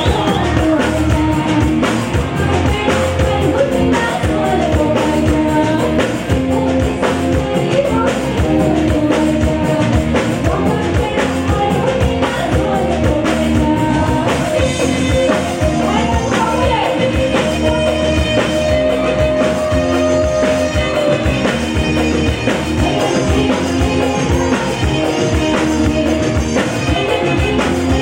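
A song with a singer over a band with drum kit, playing at a steady beat.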